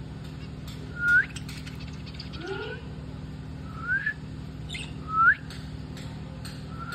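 Budgerigars giving short chirps that slide upward in pitch, about five of them a second or so apart, with soft clicks between them over a low steady hum.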